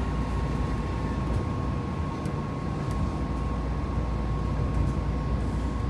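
Tama Monorail train running along its track, heard from inside the front of the car: a steady low rumble with a thin, steady whine.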